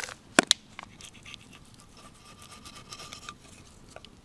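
Two sharp clicks close together about half a second in, then faint scraping of a knife on a wooden board while slicing cooked venison.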